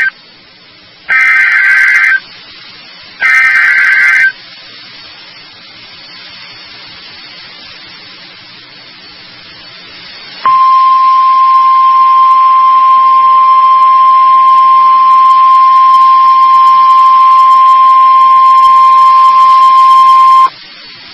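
NOAA Weather Radio emergency alert signal: two loud one-second bursts of the digital SAME header data, a few seconds of faint radio hiss, then the steady 1050 Hz warning alarm tone for about ten seconds, cutting off abruptly. It announces a severe thunderstorm warning.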